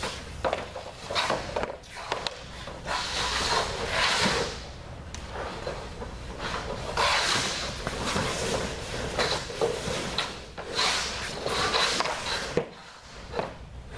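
A hockey goalie's skate blades scraping across the surface in repeated swishes as he shuffles and drops into saves, with sharp knocks of pucks and sticks on the pads and the surface.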